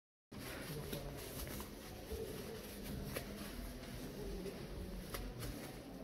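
Indoor room ambience with faint, indistinct distant voices and a few light clicks, cutting in abruptly just after the start.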